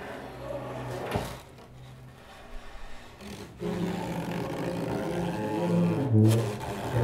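Tuba and bowed double bass playing low sustained notes in free improvisation. The playing grows louder and fuller about halfway through, with a sharp click about a second in.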